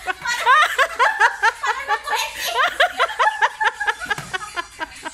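Women laughing hard: a long run of quick, high-pitched 'ha-ha' pulses, about six a second, trailing off near the end.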